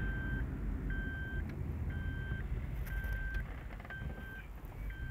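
Car driving, heard from inside the cabin: a steady low engine and road rumble, with an electronic warning beep repeating about once a second, each beep about half a second long.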